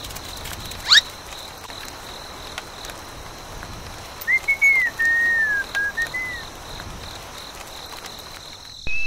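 A quick rising whistle about a second in, then a short phrase of several gliding whistled notes in the middle, over a faint steady hiss.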